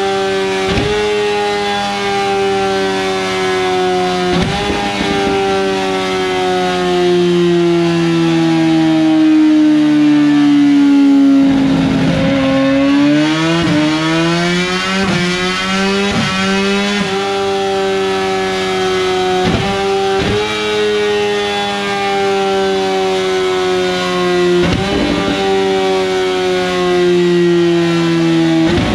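Kawasaki ZX-10RR's inline-four engine running hard on a chassis dyno through an Arrow full titanium race exhaust. Its pitch drifts down, swings up and back near the middle, then drifts again, and it is broken by a brief cut about every four seconds as the quickshifter and auto-blipper change gear.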